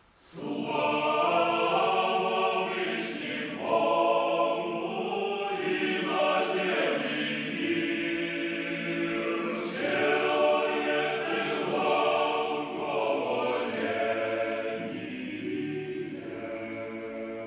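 Men's choir singing Orthodox liturgical music a cappella, entering together right at the start after a pause and singing sustained chords in several phrases.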